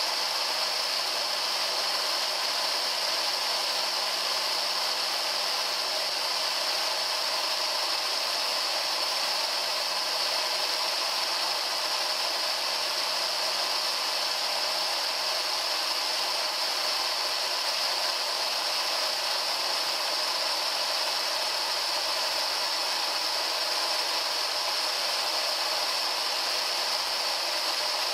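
Eight small 12 V DC motors driving a 3D-printed plastic gear train, running with a steady high whir and hiss while the gearbox winds up a heavy load of about 78 kg.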